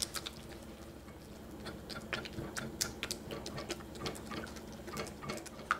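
Silicone spatula stirring melting chocolate in a stainless steel bowl over a water bath, with light, irregular clicks and scrapes against the metal. A faint steady hum sits underneath.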